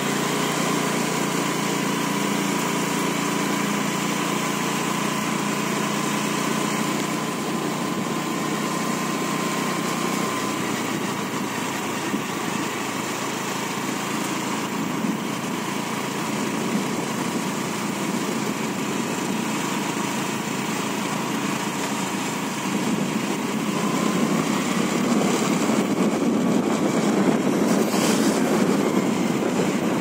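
A small engine running steadily, with a thin steady whine, over a constant rushing noise. The engine's hum drops away after about ten seconds, and the rushing grows louder near the end.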